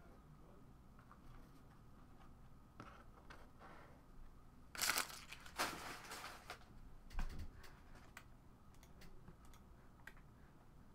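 Off-camera crinkling and crumpling of packaging, loudest in a burst of rustles about five to six and a half seconds in. A single knock follows a little after seven seconds, then a few light clicks.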